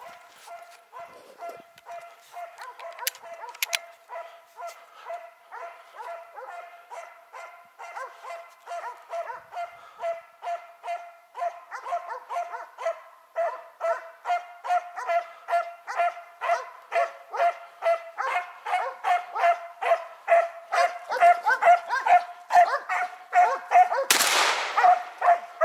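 Hunting dogs baying at a wild boar they are holding at bay: rapid, rhythmic barking at about two to three barks a second, getting steadily louder. Near the end there is a brief, harsh, noisy burst.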